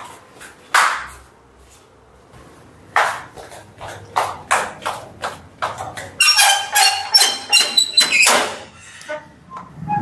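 Footsteps as knocks, then a metal gate or grille being unlatched and pulled open about six seconds in, clanking and rattling with a metallic ring.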